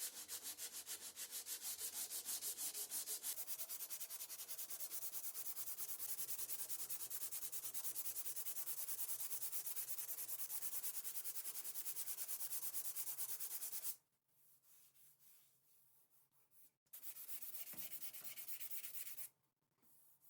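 Hand sanding of car bodywork: quick, even back-and-forth strokes of abrasive on the panel, about four or five a second. The strokes stop about two-thirds of the way through and start again for a couple of seconds near the end.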